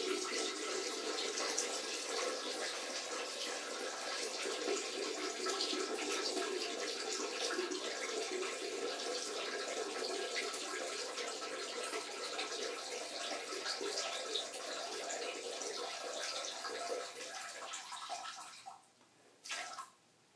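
A steady stream of urine splashing into a toilet bowl. It tails off near the end, then one last short spurt.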